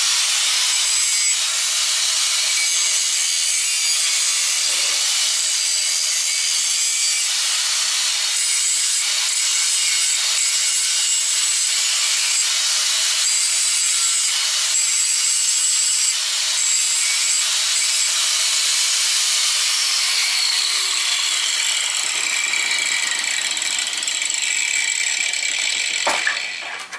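Doliz BA730 4-inch angle grinder running with a grinding disc pressed against the end of an 8 mm steel rod: a steady abrasive grinding hiss over the motor's whine, throwing sparks. The grinder stops near the end.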